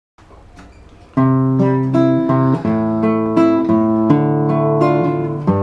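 Acoustic guitar playing a song's instrumental intro: faint for about the first second, then strummed chords that change about every half second.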